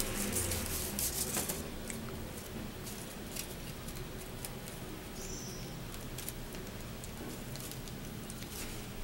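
Paper strips and a small paper disc being handled and pressed by fingers: soft clicks and rustles, busiest in the first second and a half, then a few faint scattered ticks over a low hiss.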